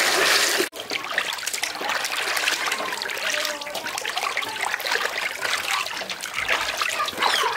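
Hands swishing and rubbing a potful of small climbing perch in water while washing them: continuous splashing and sloshing, with a sudden brief break just under a second in.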